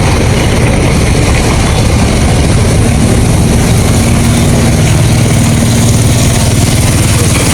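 A heavy engine running steadily at a constant speed, loud and close, with an even low hum.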